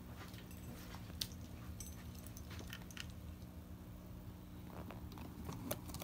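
Scattered small clicks and light taps from RC crawler parts being handled on a workbench, over a steady low hum. The sharpest clicks come about a second in and near the end.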